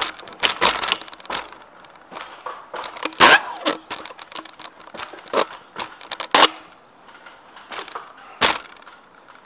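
Irregular sharp knocks and clatters of ladder and drywall tools being handled and set in place. There are about eight in all, the loudest about three seconds in and another near the end.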